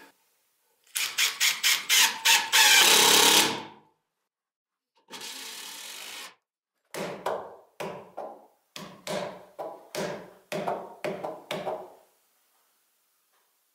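Cordless driver sinking a screw into a timber beam: several short bursts that run into one longer loud run, then a quieter steady spin for about a second. After that comes a string of about a dozen sharp knocks, roughly two a second, which stops shortly before the end.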